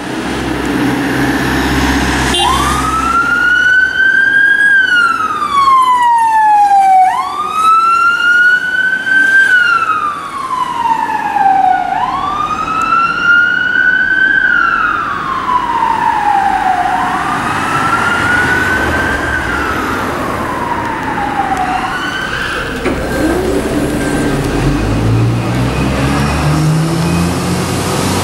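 Emergency vehicle siren on a slow wail: four long cycles about five seconds apart, each rising quickly and then falling slowly. The siren stops about three quarters of the way through, and a vehicle engine is heard rising in pitch near the end.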